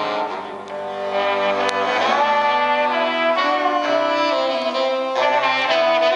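Jazz big band playing live, the brass and saxophone sections holding sustained chords that change every second or so. The sound dips briefly just under a second in, then swells back up.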